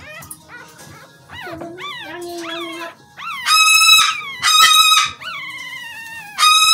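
Newborn toy schnoodle puppy crying while held and handled: thin, short whimpers and squeaks at first, then, about halfway through, three loud, high-pitched, drawn-out squeals.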